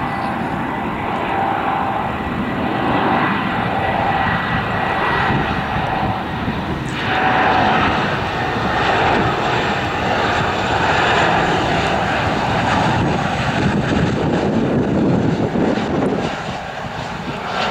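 Airbus A320 airliner's jet engines on final approach: a steady roar with a high whine over it, growing louder over the first few seconds as the plane comes past and easing off slightly near the end.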